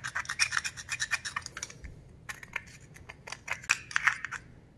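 Screwdriver scraping rust and corrosion from the inside of a metal carburetor float bowl: quick scratching strokes, thinning out around the middle and picking up again near the end.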